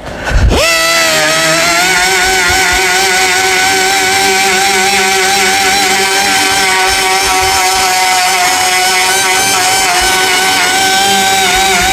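8-inch orbital sander starting up about half a second in, its whine climbing quickly to a steady pitch. It then runs steadily with small wavers in pitch while sanding short-strand fibreglass body filler with 40-grit paper.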